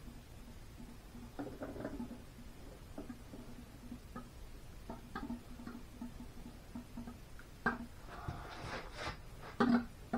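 Scattered light knocks and clicks from a hydraulic cylinder's rod and loosened gland being worked by hand in a vise, with a few louder knocks and a short scraping sound near the end.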